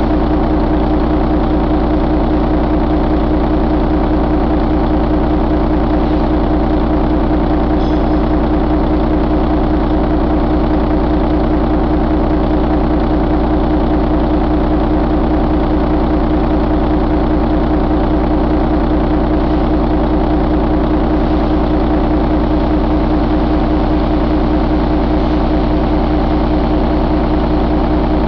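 Heavy-duty truck diesel engine idling steadily at a constant speed, with no revving.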